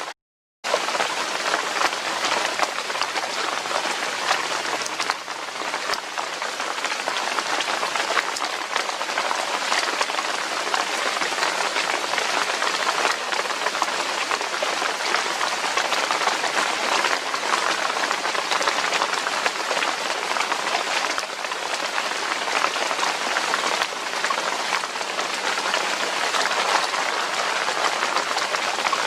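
Steady rain falling, a dense continuous patter of drops. The sound cuts out completely for about half a second near the start.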